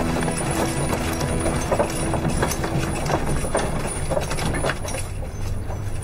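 Horse hooves clip-clopping at a walk on stone paving, with soft background music that fades out about halfway through.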